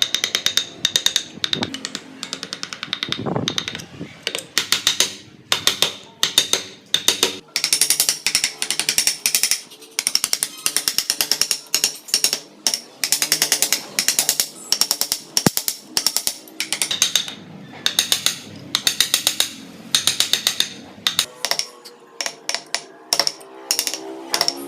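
Rapid light mallet taps driving a wood carving chisel into wood, in quick runs of many strikes with short pauses between.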